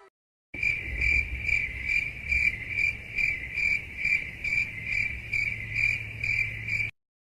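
Cricket chirping sound effect: the stock 'crickets' meme clip for an awkward silence, a steady high chirp pulsing about two or three times a second over a low hum, starting half a second in and cutting off abruptly near the end.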